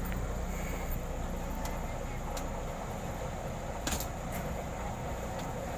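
Volvo mini excavator's diesel engine running steadily, with a few sharp clicks or knocks over it.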